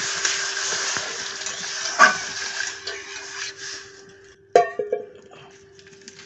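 Water poured into a hot kadai of roasted semolina, hissing and sizzling as it turns to steam, the hiss dying away over the first few seconds. A sharp metallic clank with a short ring comes about halfway through.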